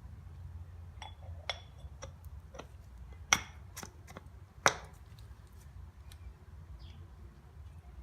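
Metal parts of a Suzuki Jimny vacuum hub clinking as they are handled and fitted back together: a series of light clicks, with two sharper clinks in the middle.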